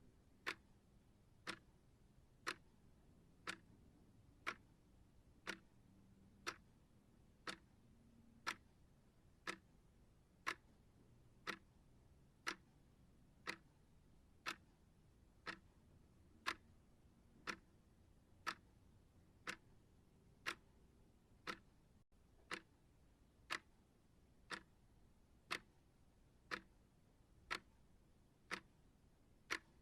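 Clock-like ticking, one sharp tick each second, at an even steady pace over a faint low hum.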